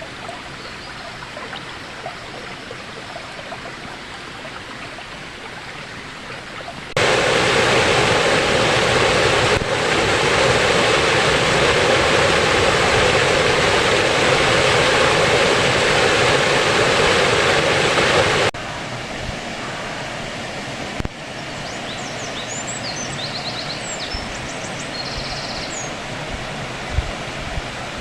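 Water rushing over the small waterfall of the Īvande river, a steady dense rush. It jumps abruptly much louder about seven seconds in and drops back just as suddenly some eleven seconds later.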